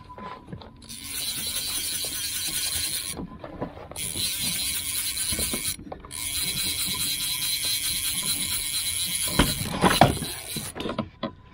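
Fishing reel being cranked in three quick spells, a rapid ratcheting gear whir with short pauses between, as a hooked fish is reeled in on a bent rod. A few knocks from the rod and kayak come near the end.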